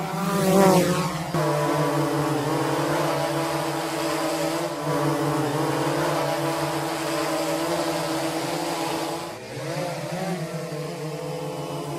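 Quadcopter drone hovering in flight, its propellers and motors making a steady buzzing hum. The pitch wavers briefly near the start and dips, then rises again, about nine and a half seconds in, as the drone changes speed.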